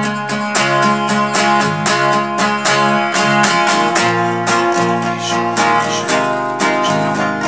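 Live band music led by an acoustic guitar strummed in a steady, even rhythm of chords.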